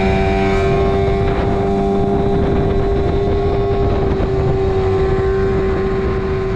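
Small tiller outboard motor on an inflatable skiff running at steady high revs, a constant pitched drone, with the boat planing fast over the rush of water and wind.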